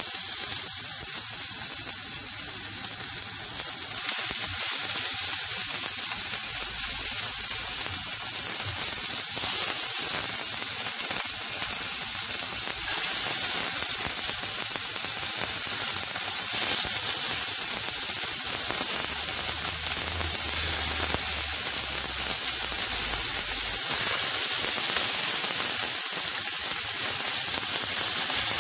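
Slices of red meat frying in hot oil in a pan, a steady loud sizzle as more pieces are laid in.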